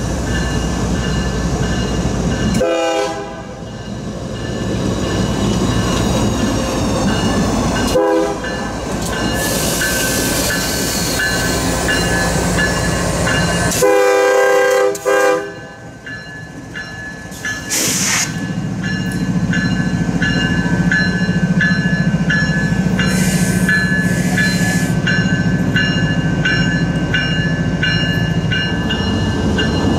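Norfolk Southern diesel locomotive sounding its horn in short blasts, the loudest and longest about halfway through. After that the locomotive's engine runs steadily as it passes, with a bell ringing over it.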